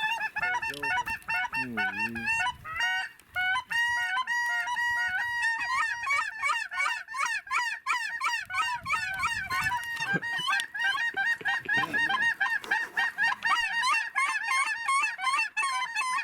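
A large flock of snow geese calling, a continuous chorus of many overlapping high, yelping honks, as the flock drops in with feet down toward the decoys.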